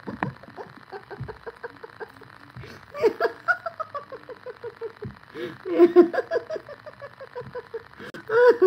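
A woman laughing in several bouts, each a run of quick pulses falling in pitch: about three seconds in, again about six seconds in, and once more near the end.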